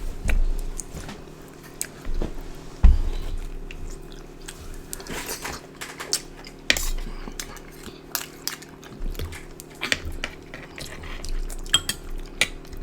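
Close-miked eating sounds: chewing and smacking on mussels, with scattered small clicks and taps of shells and dishes and one loud thump about three seconds in, over a steady low hum.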